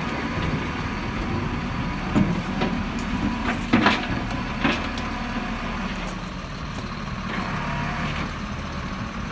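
Truck engine running steadily, with a few short knocks about two, four and five seconds in.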